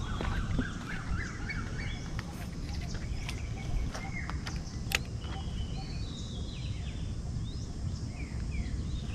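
Small birds calling with many short rising and falling chirps, over a steady low rumble and a few sharp clicks.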